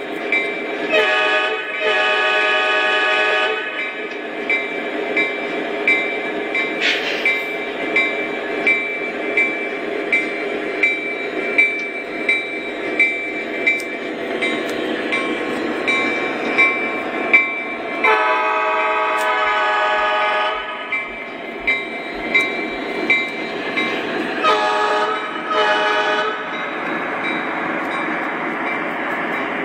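Model diesel locomotive's sound system running as the train rolls along the track: a short then a long horn blast about a second in, a long blast about two-thirds of the way through, and two short blasts soon after. Between the horn blasts a bell rings steadily over the engine rumble and the running noise of the train.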